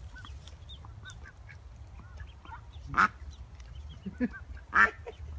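A brood of waterfowl chicks peeping softly and continuously, with a few louder calls from the adult bird near the middle and toward the end.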